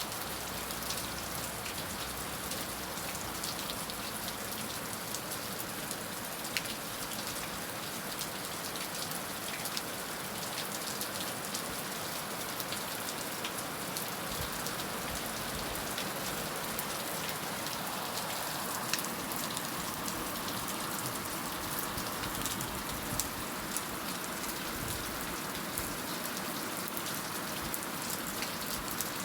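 Heavy rain falling steadily, a dense hiss with many individual drops ticking on a hard surface.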